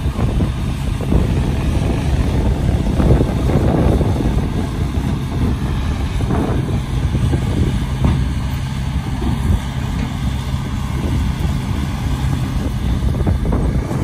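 Diesel engines of a dump truck and a small crawler bulldozer running together: a steady low rumble that swells and eases as the machines work.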